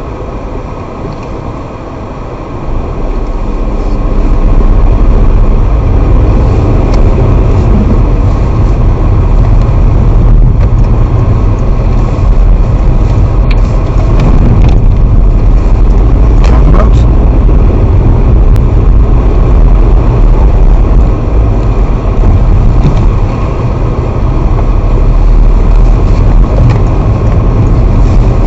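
Car driving, with steady engine and road rumble heard from inside the cabin. The rumble gets louder a few seconds in, then holds steady.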